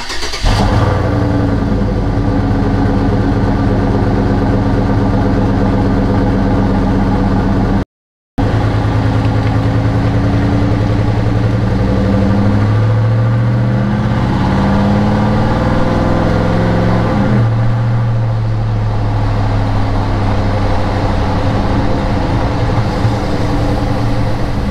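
2011 Chevy Tahoe 5.3-litre V8 idling through a Frankenstein Gibson cat-back exhaust. There is a short break about eight seconds in. Midway the revs climb gently, hold for a few seconds, then drop back to a steady idle.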